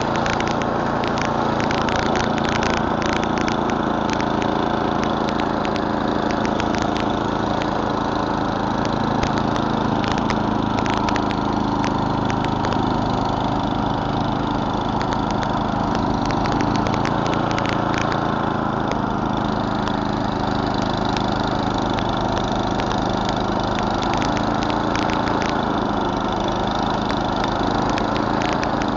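Murray Select snowblower's 11 hp Tecumseh single-cylinder engine running steadily at working speed, with frequent sharp ticks and clatter over the engine note.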